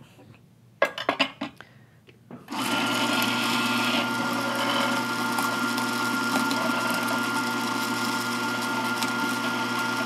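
A few clicks, then about two and a half seconds in an electric espresso grinder starts and runs steadily, grinding coffee beans into a portafilter.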